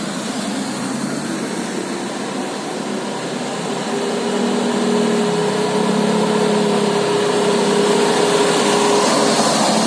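A bus's engine running steadily, with a single steady tone held from about four seconds in to about nine seconds in.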